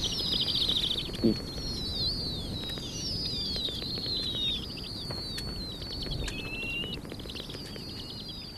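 Snowy owl chicks giving high-pitched, wavering begging calls that overlap and run on, starting with a quick run of rapidly repeated notes; a brief low note sounds about a second in.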